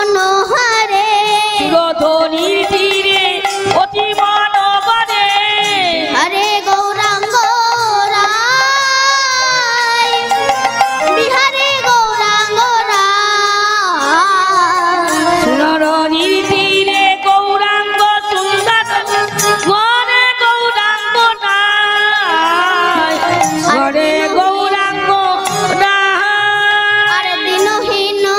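A young girl singing a Bengali kirtan, a devotional song, in long ornamented notes that waver and glide. Underneath, a steady drone holds one pitch throughout.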